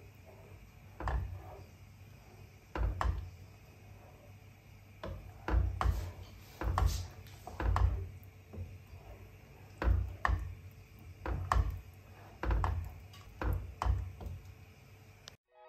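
Wooden spoon stirring gnocchi in thick sauce in a pan, knocking and scraping against the pan in irregular strokes about once a second.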